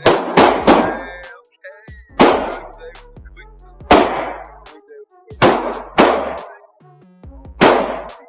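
Pistol being fired in a timed string: about nine sharp shots at uneven spacing, some in quick pairs, each with a short ringing decay.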